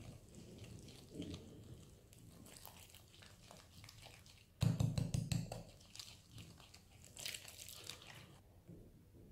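Whisk scraping and stirring cocoa powder as water is poured into a glass bowl: gritty, irregular mixing strokes turning wet, with a louder burst of knocks about halfway through.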